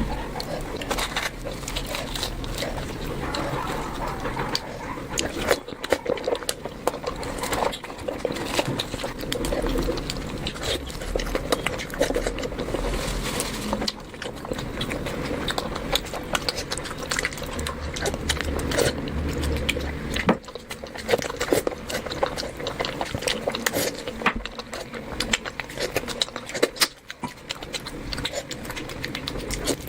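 Close-miked eating sounds: wet chewing and smacking of curry and rice, a dense run of small clicks throughout.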